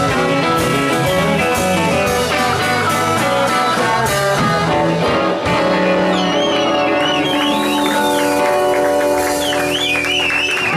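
Live rock band playing an instrumental: electric guitars, electric bass and drum kit. In the second half a lead guitar bends high notes with wide vibrato.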